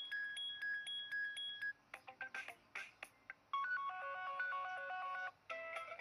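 Built-in ringtones previewed one after another through the Blackview BV9100's speaker, each cut short when the next one is tapped. First a repeating pattern of short two-tone beeps, then a few clipped snippets. After that come melodic electronic chime phrases, with a new tune starting near the end.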